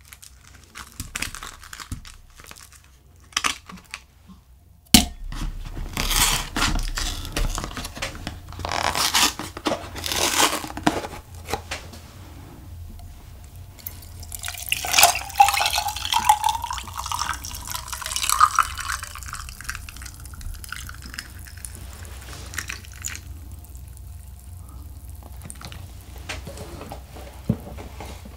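Ice cubes clinking into a glass tumbler, a sharp knock about five seconds in, then Coolpis pineapple drink poured from a paper carton over the ice, the pouring sound rising in pitch as the glass fills.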